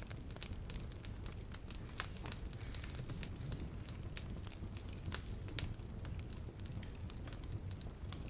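Soft, irregular crackling: many small pops and clicks at uneven intervals over a low steady rumble.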